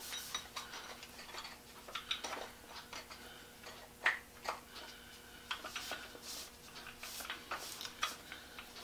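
Cloth rag buffing a waxed wooden saw handle: faint rubbing with scattered light clicks and ticks, two sharper ones about four seconds in.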